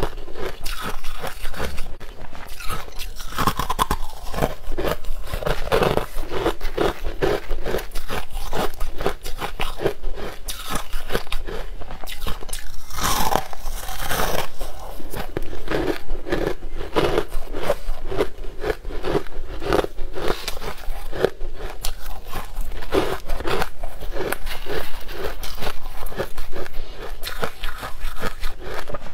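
Purple-coloured crushed ice being bitten and chewed: a steady run of crisp, loud crunches, several a second.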